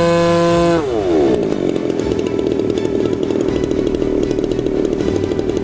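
Engine of a Corsair RC model plane running steadily at high revs, then throttled back about a second in, its pitch falling quickly and settling into an uneven, pulsing idle.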